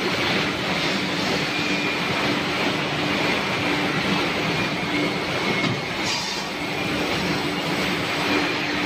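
Automatic horizontal band resaw running steadily and sawing a wood board fed along its conveyor: a continuous machine hum with a steady tone and a broad hiss, and a brief higher hiss about six seconds in.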